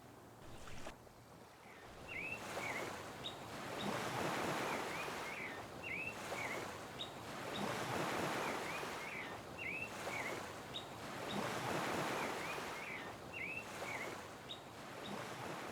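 Surf washing in and drawing back in slow swells, about one every four seconds, with a bird's short chirps repeating over it.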